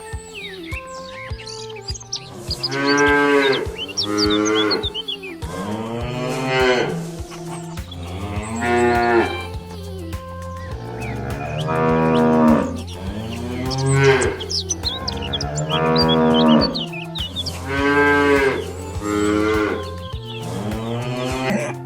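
Cows mooing again and again: about nine drawn-out calls, each rising and falling in pitch, over a steady low musical backing.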